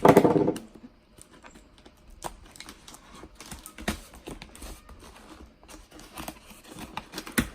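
Packaging of a small tool set being handled and opened: crinkling and tearing with scattered small clicks and taps. A short, loud voice-like sound comes at the very start.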